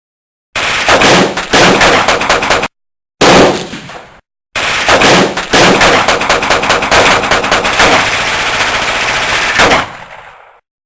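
Machine-gun fire sound effects in three bursts of rapid shots: a two-second burst, a short one that dies away, then a long burst of about six seconds that fades out near the end. The bursts start and stop abruptly with dead silence between, as edited-in sound effects do.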